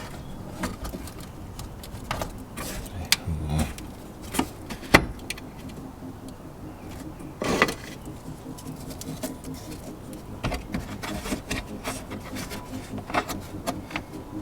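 Scattered clicks, knocks and light rattles of hands working plastic wiring-harness connectors behind a car's wheel liner, trying to unplug them; the sharpest knock comes about five seconds in.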